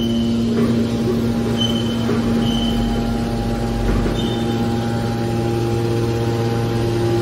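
Hydraulic scrap metal baler running: a steady hum from its pump and motor, with a few short high squeaks and faint knocks from the machine.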